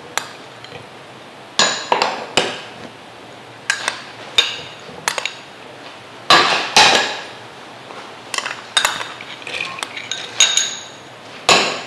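Bowls and utensils clinking and tapping against the jar of a small high-speed blender as soaked ingredients are tipped in: a string of irregular sharp clinks, each with a short ring.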